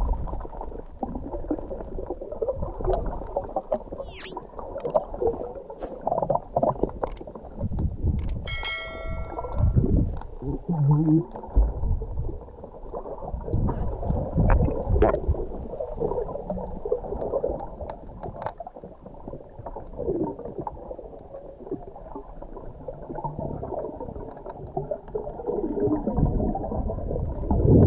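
Muffled underwater churning and bubbling from swimmers kicking with fins, heard through a GoPro's waterproof housing, with scattered clicks and a brief ringing ding about eight seconds in.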